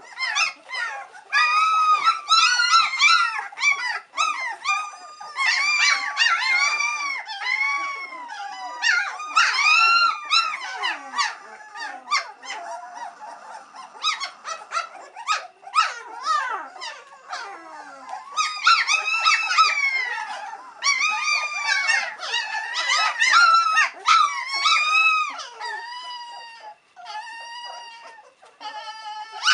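Litter of three-week-old White Swiss Shepherd puppies whining and squealing, many short high cries that rise and fall and overlap one another. The cries ease off a little around the middle and again near the end. The pups are impatient for a feed.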